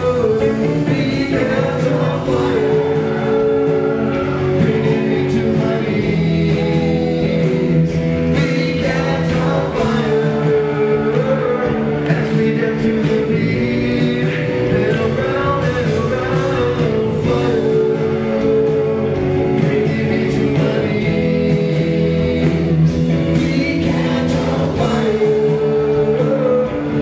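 Live pop-rock band playing: a male lead vocal over electric bass, guitar and drums, loud and continuous, recorded from the audience.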